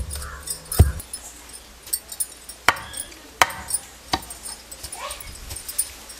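Pestle pounding a crumbly mix of ragi roti, jaggery and peanuts in a stone mortar: two heavy dull thuds in the first second, then, after a short pause, several lighter, sharper strikes spaced under a second apart.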